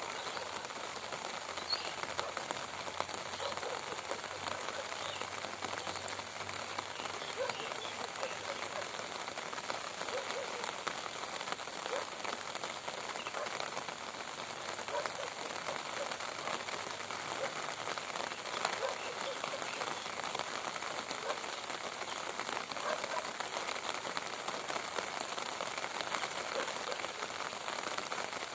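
Rain falling steadily: an even hiss with many separate drop hits landing close by.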